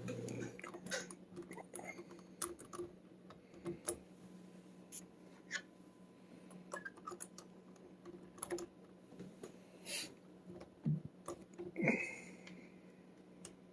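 Irregular light clicks and scrapes of a lock pick and tension wrench working the pins of a Schlage pin-tumbler lock cylinder, picked one-handed.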